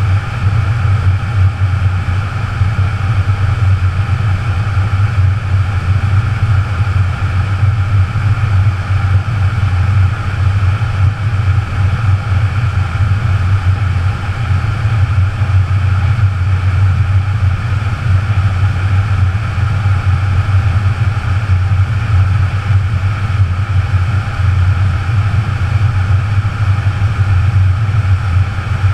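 Wind rushing over a helmet-mounted GoPro as the helmet falls through the air on its own after coming off a skydiver. A steady, loud rumble of buffeting air.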